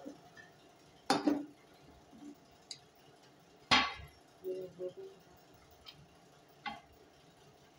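A spatula clinking and scraping against a metal kadai as a thick fried mixture is stirred: three sharp clinks spread a few seconds apart, the loudest a little under four seconds in, with lighter ticks between.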